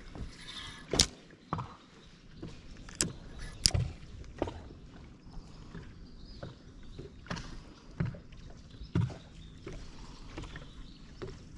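Irregular sharp knocks and clicks of gear being handled in a fishing boat, about seven in all, the loudest about a second in and again a few seconds later.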